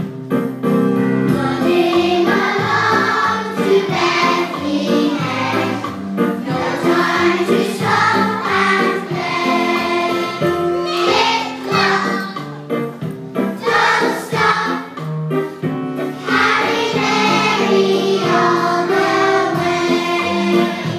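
A children's choir singing a Christmas song together, with held low accompanying notes underneath.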